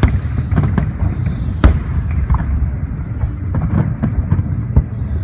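Fireworks going off: a rapid string of bangs and crackles over a continuous low rumble, with the sharpest bang about one and a half seconds in.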